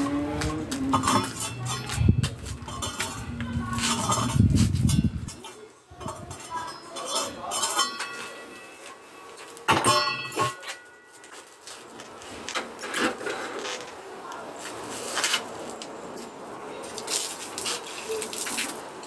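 Electric angle grinder running with a steady hum for about five seconds, then shutting off abruptly. Scattered knocks and clinks of concrete blocks and rubble being handled follow, and near the end water splashes from a tipped bucket.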